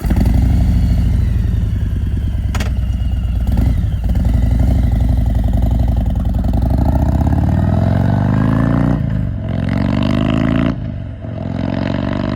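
Harley-Davidson CVO Road Glide's Milwaukee-Eight VVT 121 V-twin running loud. Its pitch climbs steadily for a couple of seconds past the middle, then drops and climbs again twice near the end, as with throttle rolled on through upshifts.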